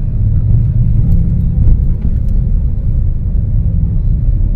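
Car heard from inside the cabin while driving: a steady low rumble of engine and road noise.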